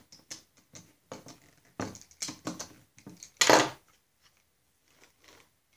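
Screwdriver driving screws into a Snapper mower's steel chaincase cover: a run of short clicks and scrapes at about three or four a second, then one louder clatter a little past three seconds in as the metal case is handled, followed by a few faint ticks.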